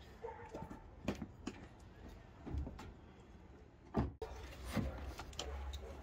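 A few scattered light knocks and bumps of wooden poles and boards being handled and set in place, the sharpest about four seconds in, over faint outdoor background.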